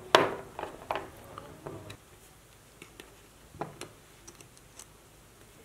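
Clicks and knocks of small model-car parts being handled on a tabletop: rubber-tyred toy wheels with plastic hubs and wooden chopstick pieces. A cluster of knocks over the first two seconds, the loudest right at the start, then a few scattered light ticks and one more knock about halfway through.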